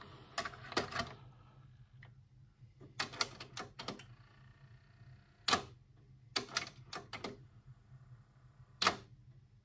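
Philips DCC 600 cassette deck's tray whirring shut, then its tape mechanism clicking and clunking in irregular clusters every second or two, with a faint motor hum between, as it tries and fails to play a normal cassette. The owner takes the failure for a mechanical fault.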